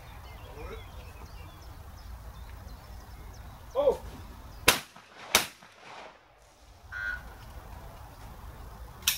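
Two shotgun shots at clay targets on a trap range, less than a second apart, a little under five seconds in; another sharp shot near the end.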